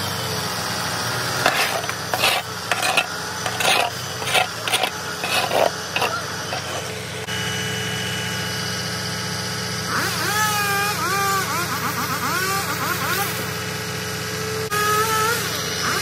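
Truck engine running steadily while it powers a hydraulic grapple loader, with a string of sharp cracks and knocks in the first half.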